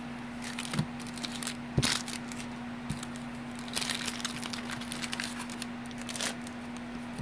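Baseball cards being handled and shuffled by hand: irregular rustling and scraping of card stock with a few sharp clicks and taps, the loudest about two seconds in. A steady low hum runs underneath.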